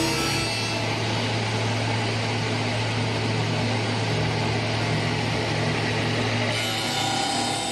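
CNC wood lathe running: a steady motor hum under an even noisy hiss, the hiss growing brighter near the end.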